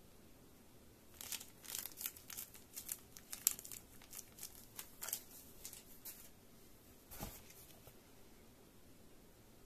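A small clear plastic bag crinkling and crackling as it is handled, in quick irregular bursts for about five seconds, followed a second later by a single soft thump.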